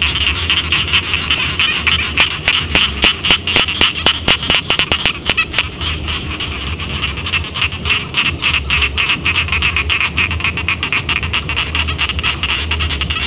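Rice-paddy frogs calling in chorus: a dense, rapid clicking rattle, thickest in the first half, over a steady low hum.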